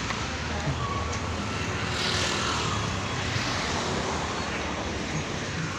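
Street traffic noise: a steady wash of passing vehicle engines and tyres, swelling briefly about two seconds in as something passes closer.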